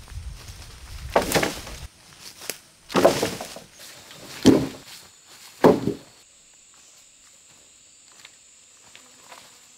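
Four heavy footsteps or thuds through forest undergrowth and leaf litter, spaced about a second and a half apart, followed by only faint rustles and ticks.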